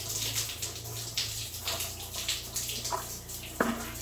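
Water draining in a thin, steady stream from the cold-water fitting of an electric storage water heater and splashing below as the tank is emptied, with a short click about three and a half seconds in.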